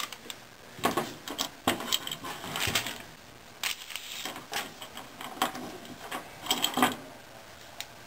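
Irregular clicks and taps of small plastic washing-machine agitator dogs being handled and set down on a dryer's enamelled metal top, with plastic bag crinkling.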